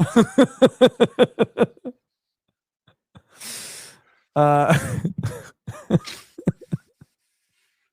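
A man laughing: a quick run of 'ha-ha' pulses, then a breathy exhale, then a second burst of laughter trailing off in short chuckles.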